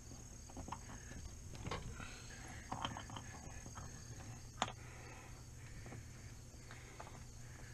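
Faint rustling of camper canvas being handled and pushed into a metal roof track, with scattered light clicks and one sharper click about four and a half seconds in.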